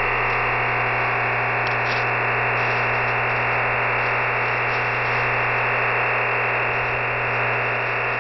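EasyDRF OFDM digital data signal received off a shortwave broadcast: a steady, even rushing hiss confined to a sharp-edged band, with a constant low hum beneath it, carrying image files as they decode.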